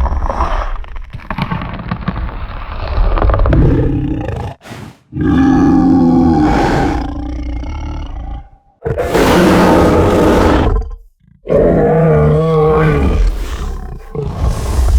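Wampa creature sound effect: a series of long, loud roars, each lasting a few seconds, with brief silences between them.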